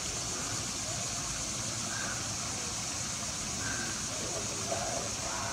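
Night insects singing in a steady, unbroken high-pitched chorus, brought out by the darkness of the total solar eclipse, over a low rumble and faint voices.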